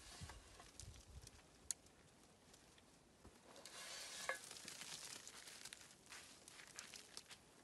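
Faint crackling and rustling of branches and moss being handled, with scattered small clicks, a sharper click early on, and a louder stretch of rustling in the middle that carries a brief squeak.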